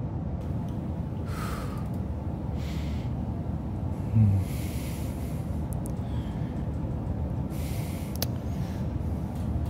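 A man breathing heavily in slow, audible breaths a second or two apart, with a short low grunt about four seconds in, over a steady low background rumble.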